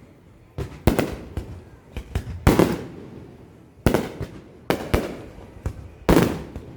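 Fireworks exploding, a string of sharp bangs roughly every second, each trailing off in a crackling rumble; the heaviest bangs come about two and a half seconds in and near the end.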